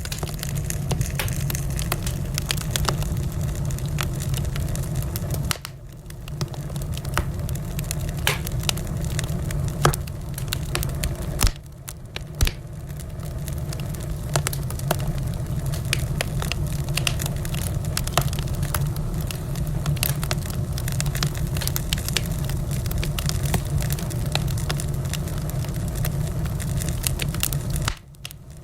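Wood fire crackling: a steady low rumble of burning with sharp pops and snaps scattered irregularly throughout. The sound dips briefly about six seconds in and again near twelve seconds.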